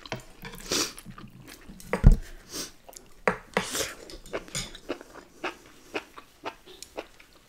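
Close-miked eating at a table: scattered clicks and clatter of chopsticks against a metal sheet tray and dishes, mixed with eating mouth sounds, and one heavy thump about two seconds in.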